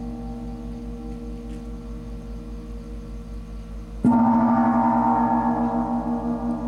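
A large gong struck once about four seconds in, over the fading ring of an earlier stroke. It rings on with a slow wavering pulse in its low tone. It marks the elevation of the host at the consecration of the Mass.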